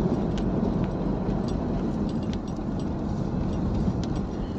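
Car driving along a paved road, heard from inside the cabin: a steady low rumble of engine and tyre noise, with a few faint clicks.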